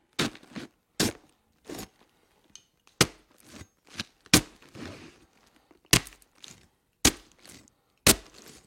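Knife stabbing into a head of iceberg lettuce, about nine crisp, sharp stabs at uneven intervals of roughly a second, each with a short crunch as the blade goes in. This is foley for a fleshy stabbing sound.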